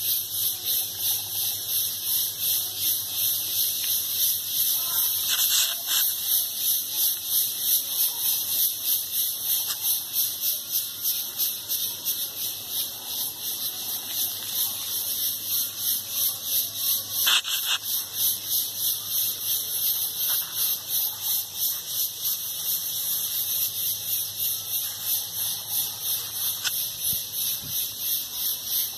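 A chorus of forest insects buzzing high and shrill in a fast, even pulse of about three beats a second, without let-up.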